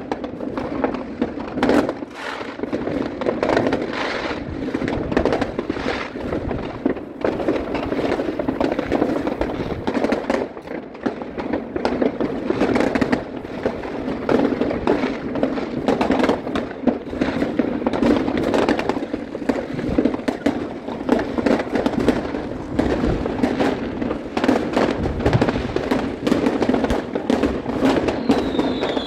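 Fireworks going off from all sides at once: a dense, unbroken barrage of bangs and crackles, many each second, that overlap into a constant rumble.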